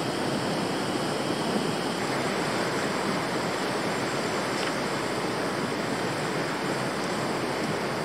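Steady sound of a mountain river flowing over rocks.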